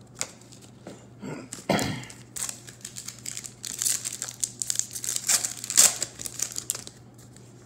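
A 2018 Bowman baseball card pack's foil wrapper crinkling as it is torn open by hand. The crackling comes in quick bunches, thickest from about a second and a half in until near the end.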